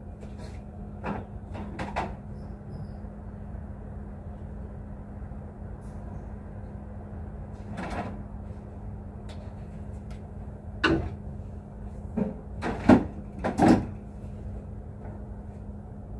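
Plastic clothes hangers clacking and knocking on a drying rail as laundry is hung up: scattered sharp knocks, with a cluster of louder ones near the end, over a steady low hum.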